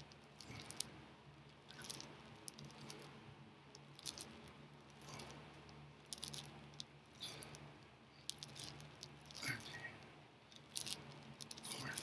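Faint rustling of bedding and clothes, with scattered soft clicks and rattles, as a person lying on a bed lifts and pulls in his legs; a steady low hum runs underneath.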